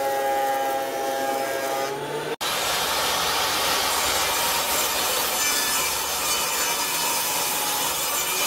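A benchtop thickness planer runs with a wenge board feeding through, its hum sagging a little in pitch. About two and a half seconds in, the sound switches to a table saw cutting a glued-up wenge end-grain panel into strips on a crosscut sled, a steady dense rushing noise.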